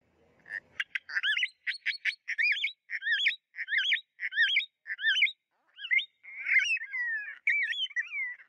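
Small green parakeet calling: a series of high, sweeping chirps, about two a second, breaking into a busier run of chatter near the end.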